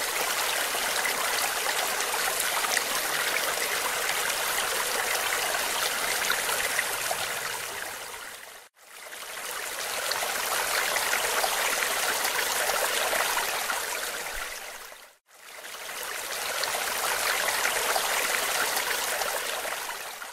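Stream water rushing and splashing steadily, fading out to silence and back in twice, about nine and fifteen seconds in, and fading away at the end.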